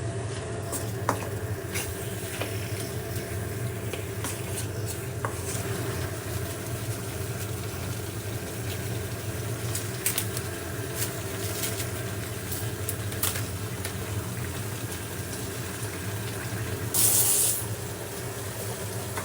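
Biryani cooking in a pot: a steady watery sound over a low hum, with scattered light clicks and a brief burst of hiss near the end.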